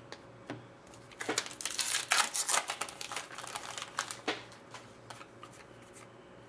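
Hockey trading cards being flicked through one behind another in the hands, a quick run of soft snaps and rustles that dies down near the end, mixed with the crinkle of the pack's foil wrapper.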